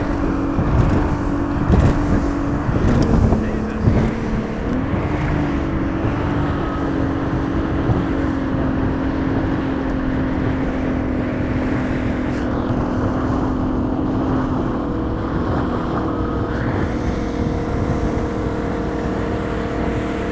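Mercury 150 V6 two-stroke outboard running at cruising speed on a bass boat, with wind on the microphone. Its note dips briefly about three seconds in and climbs back, and a few thumps come in the first four seconds.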